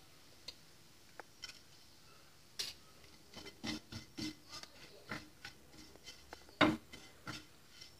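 Wooden spatula stirring a thick potato and onion filling in a nonstick pan, with irregular soft scrapes and taps against the pan. The taps are sparse at first and come more often from a couple of seconds in, with the loudest tap near the end.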